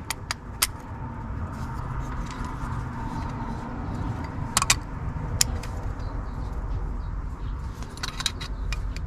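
Light metallic clicks and taps as the glow plug rail is worked up off the glow plug studs: a few near the start, a couple about four and a half seconds in and one more a second later, over a steady low background noise.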